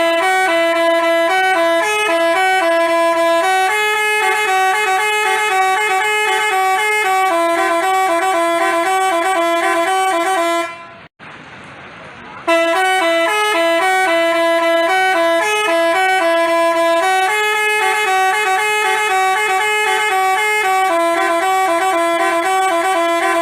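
Basuri telolet bus horn playing its multi-tone tune: a string of stepped, held horn notes. The phrase runs for about eleven seconds, stops briefly, then plays again.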